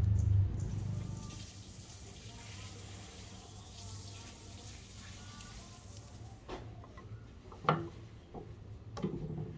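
Masking tape being peeled off a steel axe head: a faint rustle, followed by a few sharp clicks and knocks from handling the head, the loudest about three-quarters of the way in. A low hum fades out in the first second.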